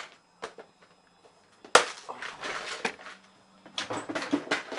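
A sharp click, then a run of rattling clicks and scrapes, and another run near the end: small parts of an air rifle being handled.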